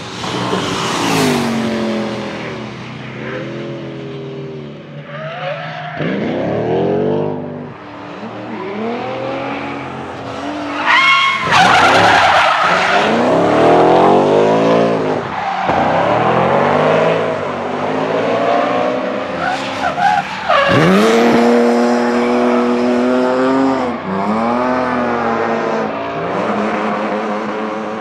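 Supercharged BMW M3 E92's V8 revving up and down over and over through a drift, with the tyres squealing.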